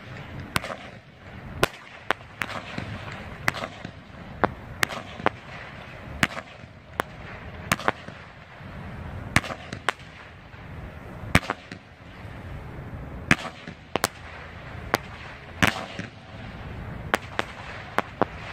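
Criss Cross 16-shot, 200-gram consumer firework cake firing: a string of sharp bangs, about two a second and irregularly spaced, as it launches flaming balls that end in reports.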